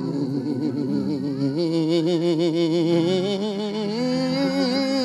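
Church organ music: slow, held chords with a wavering vibrato.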